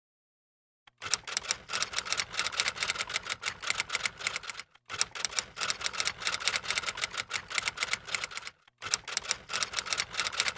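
Typing sound effect: rapid key clicks, many a second, in runs broken by two short pauses, starting about a second in.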